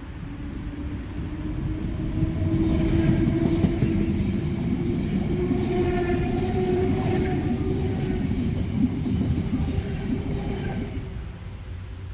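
Electric passenger train passing close by on the rails, with wheel rumble and rattle plus a steady hum. It builds over the first couple of seconds, stays loud while the carriages go past, and fades near the end.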